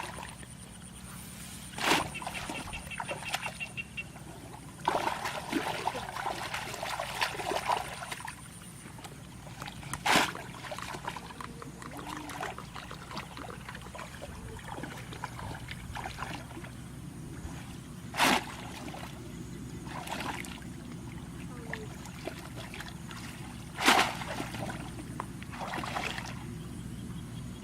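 Water splashing and trickling in shallow water, with four sharp splashes spaced several seconds apart and a busier stretch of splashing early on, over a faint steady low hum.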